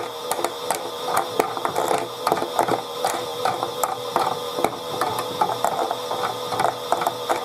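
Chad Valley toy washing machine running, its small motor and plastic gears turning the drum with a steady whine and rapid, irregular ratcheting clicks.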